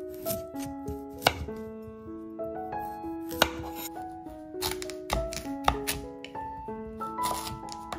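Chef's knife slicing through a peeled beetroot and striking a wooden cutting board, several sharp cuts a second or two apart. Soft background music of single melody notes runs underneath.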